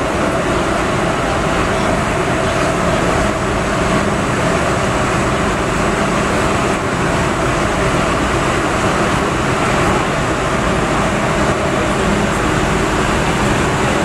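MTR M-Train (Metro-Cammell EMU) running steadily, heard from inside the passenger car: a constant, loud rumble of wheels on rail and running gear, with a faint steady hum.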